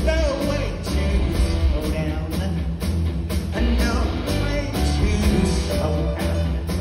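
Live rock band playing: a man singing over electric guitar, bass guitar, drums and keyboards with a steady, driving beat.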